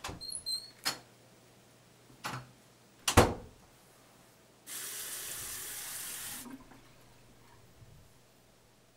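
A few sharp knocks and clicks, the loudest about three seconds in, then a bathroom sink tap running into the basin for about two seconds before it is shut off.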